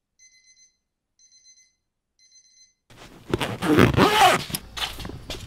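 Electronic alarm beeping in short high-pitched bursts about once a second, three times. Then, about three seconds in, loud rustling and handling of a fabric travel bag takes over.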